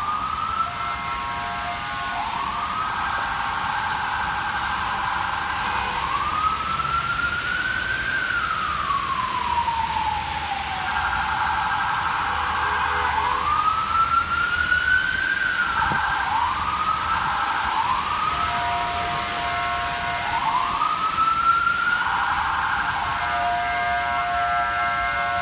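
Emergency vehicle siren on an FDNY battalion chief's vehicle responding through traffic: a wail that rises and falls slowly, with a few quicker rises near the middle. Held horn blasts sound between the sweeps over a steady street hum.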